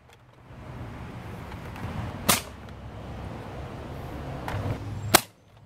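Homemade Nerf dart blaster built into a Super Nintendo Super Scope shell, with a foot-long brass barrel, firing twice about three seconds apart, each shot short and sharp.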